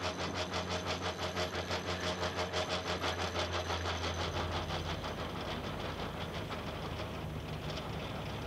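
Petřín funicular's haul cable running over its track pulleys: a steady hum with fast, even clicking about four times a second. After about four and a half seconds the clicking fades into steadier running noise.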